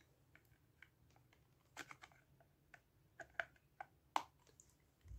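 Faint, scattered clicks and taps of a mini wireless speaker's plastic cap and body knocking together as the cap is fitted into place.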